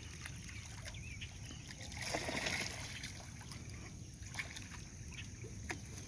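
Pond water lapping with a few faint small splashes, over a steady low rumble; a brief swell of hiss about two seconds in.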